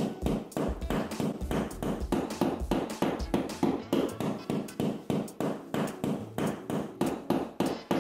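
Quick, regular knocks, about three to four a second, as a hand screwdriver is worked into drywall.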